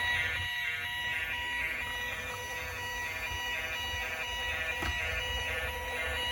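Toy police car's electronic siren sounding through its small speaker, with steady high electronic tones in a fast repeating pattern.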